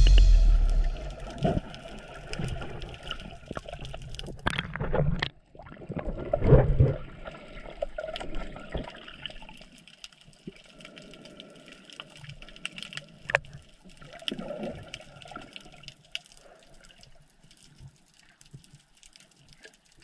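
Underwater water sound picked up by a submerged camera: irregular swells of rushing, bubbling water in the first several seconds, then a quieter crackle with scattered clicks.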